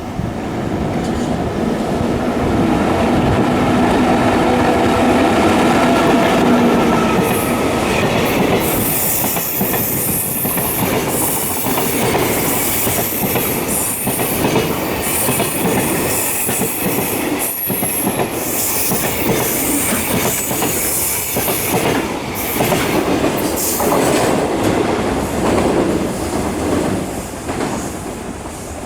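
A train running on the rails past the microphone, its wheels clattering over rail joints. A steady electric hum comes first, then high-pitched wheel squeal and hiss from about seven seconds in, easing off near the end.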